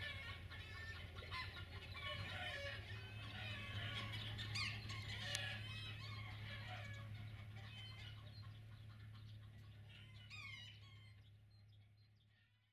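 Chickens clucking faintly over a low steady hum, fading out near the end.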